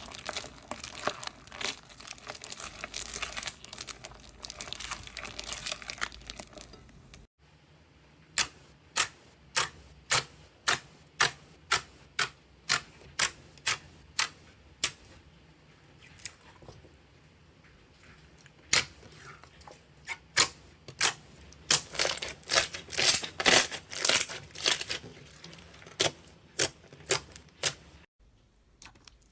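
Fluffy clay slime being squished and worked, with a steady crinkly crackling. After a sudden break it gives a run of sharp pops, about two a second, packed closer together near the end.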